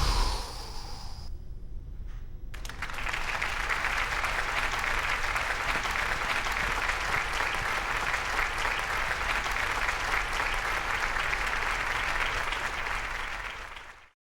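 Crowd applauding: a dense, steady clatter of many hands clapping that starts about two and a half seconds in, after a brief quiet gap, and cuts off abruptly near the end.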